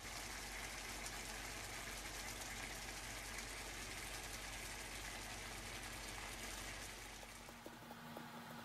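Fish curry simmering in a pan: a steady bubbling, crackling hiss that drops away near the end.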